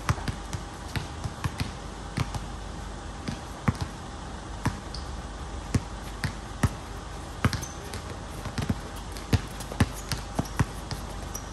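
Basketball bouncing on a hard outdoor court as it is dribbled, sharp bounces coming unevenly, roughly one a second with a few quick doubles.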